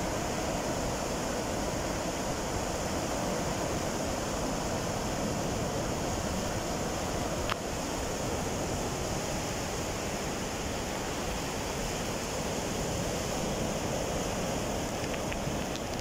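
Mediterranean surf breaking and washing up the shore, a steady rush of waves, with one faint click about halfway through.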